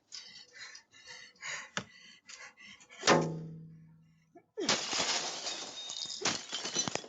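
A single loud metallic clang about three seconds in, ringing with a clear pitch and dying away over about a second. After a short pause, a few seconds of rough, noisy rustling follow.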